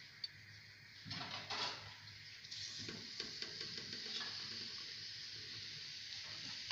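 Fish steaks being laid one at a time into hot oil in a karahi, each landing with a short burst of sizzling, settling into a steady hiss of shallow frying from about two and a half seconds in.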